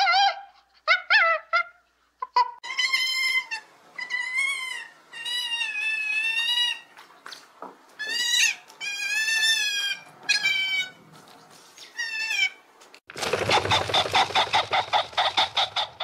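Otters calling: a run of long, high, wavering squeals, each lasting about a second, with short sharp calls at the start. In the last three seconds a loud, rapid pulsing chatter takes over.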